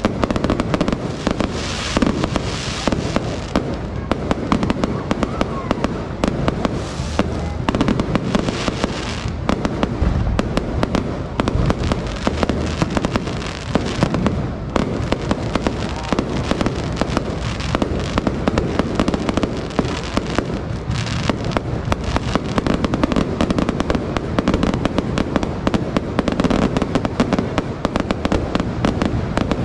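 A fireworks display going off in rapid, continuous succession: a dense barrage of bangs and crackles with no let-up.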